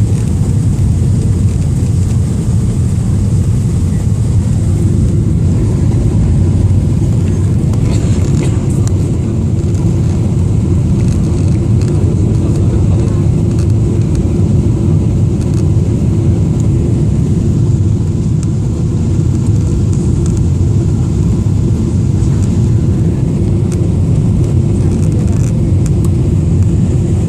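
Steady cabin noise inside a Boeing 777-300ER in flight: a loud, even low roar of the engines and airflow, with a faint high whine running through it.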